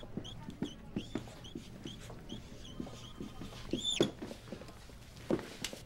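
Marker squeaking on a flip-chart board as it writes: a quick run of short, high squeaks with soft taps of the strokes, and one longer, louder squeak about four seconds in.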